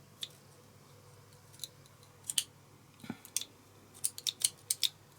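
Yarn clippers snapping shut again and again in sharp clicks, single snips at first and then a quick run of them near the end. The plastic cover is still on the clippers, so they close without cutting the yarn.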